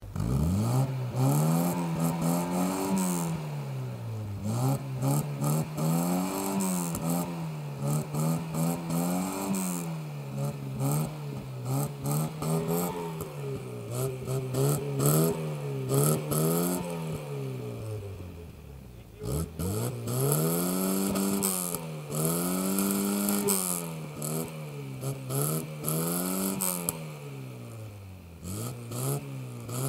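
1983 VW Golf Mk1 GTI's 1.8-litre single-overhead-cam four-cylinder petrol engine, free-revved in repeated throttle blips while the car stands still. The revs climb and fall back again and again, each rise and fall taking a second or two, and dip to a low idle once about two-thirds of the way through. It is heard close to the tailpipe.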